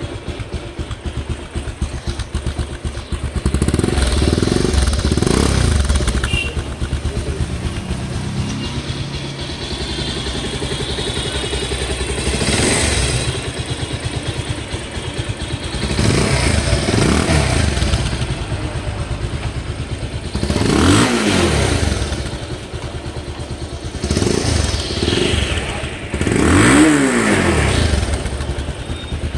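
Bajaj Pulsar 220F's single-cylinder engine idling and being revved in about six short throttle blips, each rising and falling in pitch.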